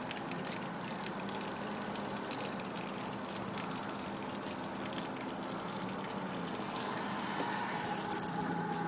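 Forklift running with a steady hum, holding its load, with a few sharp clicks near the end.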